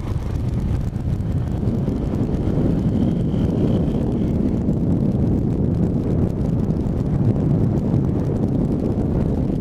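Steady wind rush buffeting the microphone on a moving motorcycle, with the Suzuki GN250's single-cylinder engine running underneath as it rides along.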